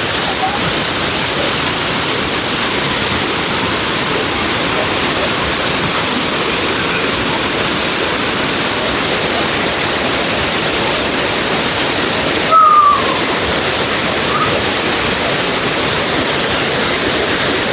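Waterfall pouring into a pool, a loud, steady, even rush of falling water.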